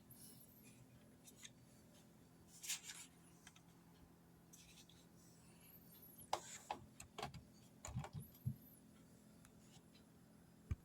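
Quiet handling noises over a faint steady hum: a rustle, a couple of faint squeaks, a cluster of clicks and light knocks, and a sharp click near the end, as of hard plastic parts being handled. The vacuum motor is not running.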